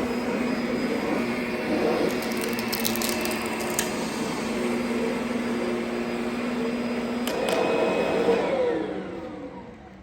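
Kirby Sentria 2 upright vacuum running steadily, with a few sharp clicks along the way. Near the end it is switched off and the motor winds down, its whine falling in pitch as it fades.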